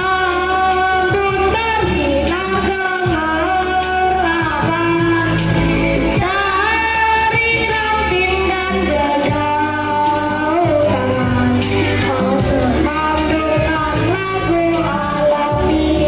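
A group of children singing a song over backing music with a steady bass line, played through a stage loudspeaker.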